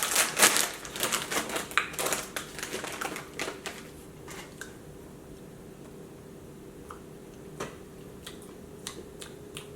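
Crinkly popcorn snack bag rustling and crackling as a hand goes into it, thinning out to scattered small crunches and clicks from eating the popcorn.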